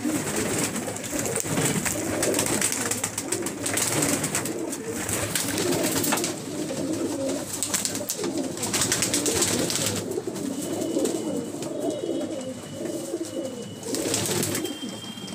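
A flock of Deobandi pigeons cooing continuously, with repeated bursts of wing flapping.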